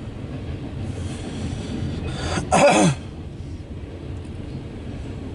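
A person coughs once, loudly, about two and a half seconds in, the cough ending in a voiced sound that drops in pitch, over a steady low rumble.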